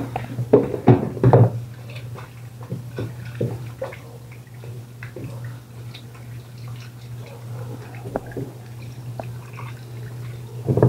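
Food-preparation handling noises: a few louder knocks and clicks about a second in, then scattered light clicks and wet drips, over a steady low hum.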